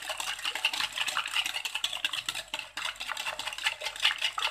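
Eggs and sugar being beaten by hand in a glass bowl, the utensil clicking rapidly and evenly against the glass as it works the mixture together.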